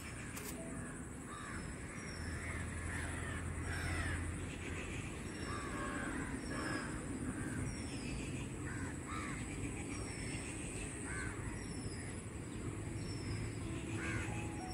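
Birds calling outdoors: many short calls scattered all through, with a short high falling note repeating about once a second.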